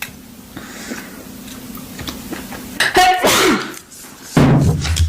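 A woman sneezing: a breathy build-up, then two loud, sudden sneezes, about three seconds in and again about four and a half seconds in.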